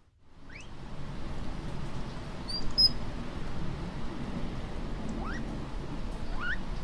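Patagonian mara calling: short high squeaks that rise in pitch, a few seconds apart, over a steady low noise, with a brief high chirp a little before the middle.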